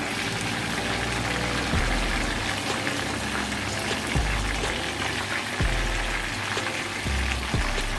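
Fish slices frying in shallow hot oil in a pan, a steady sizzle, as the slices are turned with metal tongs. Background music with low bass notes plays under it.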